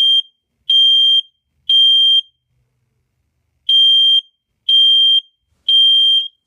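First Alert SA320CN smoke alarm sounding on test: loud, steady high-pitched beeps in the temporal-three evacuation pattern, three beeps, a short pause, then three more.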